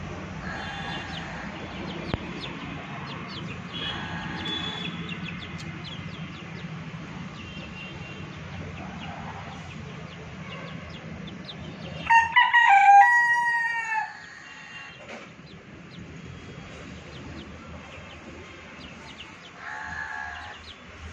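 A rooster crows once, about twelve seconds in: a single pitched call of about two seconds that bends in pitch, the loudest sound here. A few fainter, short chicken calls come before it and near the end.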